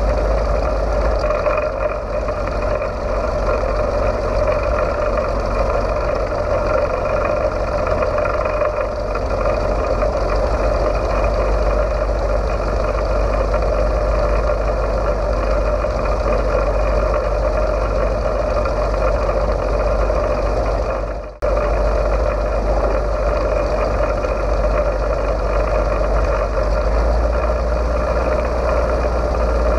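Siemens-Halske Sh 14A seven-cylinder radial engine of a VL Viima II biplane running steadily at low power while the plane taxis on grass. The sound breaks off for a split second about two-thirds of the way through.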